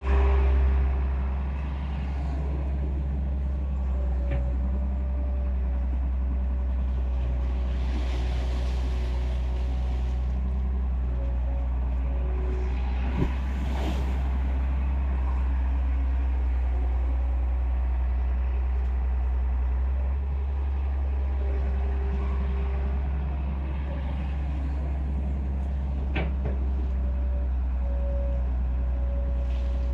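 Excavator's diesel engine running steadily with a low drone, with a few sharp knocks and a couple of brief hisses.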